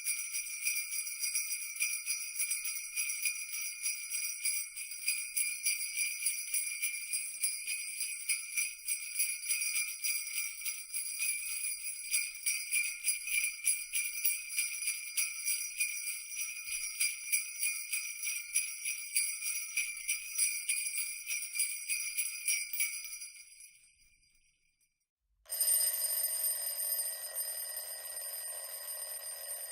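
Jingle bells shaking in a fast, continuous jangle that fades out about 23 seconds in. After a short silence, a bell starts ringing steadily near the end, in the manner of an alarm clock.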